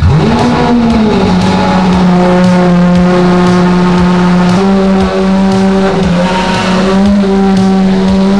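Lamborghini Aventador's V12 engine starting up: the revs flare and drop back in the first second, then it settles into a steady high idle that steps up slightly about halfway through.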